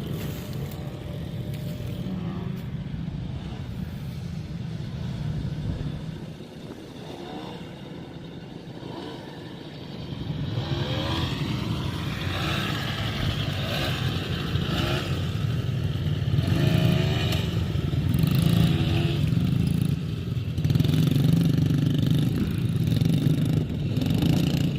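Small engines of kids' dirt bikes and four-wheelers running and revving on a dirt track, dropping back for a few seconds and then getting louder again about ten seconds in, with pitch rising and falling as they ride by.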